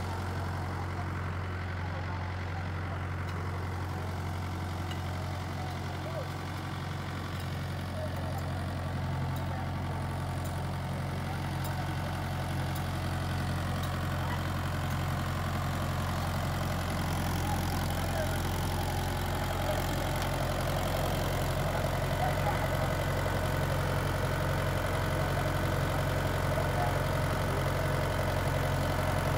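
Farm tractor's diesel engine idling steadily with a low, even hum, growing louder in the second half.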